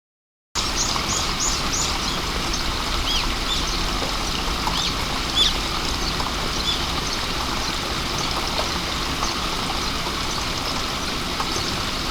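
Steady rain falling, with birds chirping over it: a quick run of high chirps just after the sound cuts in about half a second in, then scattered calls.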